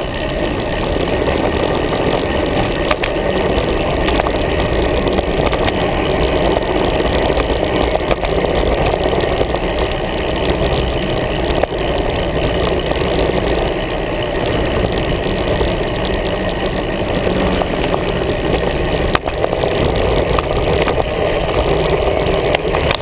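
Steady rush of wind over a handlebar-mounted action camera on a moving road bike, mixed with tyre noise on the asphalt, with a few light clicks and rattles from the bike.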